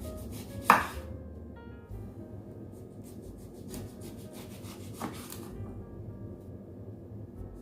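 Knife cutting a lemon: a sharp knock about a second in and a smaller one around five seconds, with faint scraping and clicking between.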